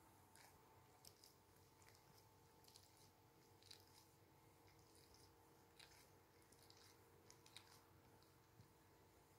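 Near silence with faint, irregular soft crackles and rustles: fingers scratching through a dog's long fur, over a faint steady hum.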